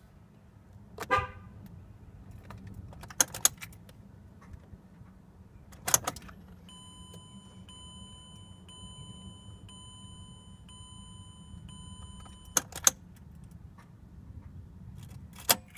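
Keys clicking and jangling in a 2005 Mazda 6 that won't start, with a short horn-like toot about a second in and a steady electronic tone in the middle. The engine neither cranks nor runs, a sign of the car's electrical fault.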